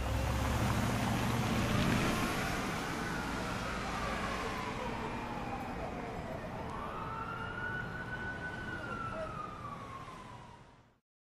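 Distant emergency-vehicle siren in a slow wail, rising and falling twice over steady city traffic noise, with a car's engine rumbling past close by in the first second. Everything fades out near the end.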